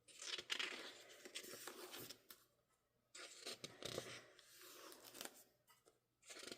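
Faint rustling and scraping of paper and card as a K-pop album's book and inserts are handled, in two spells with a pause between.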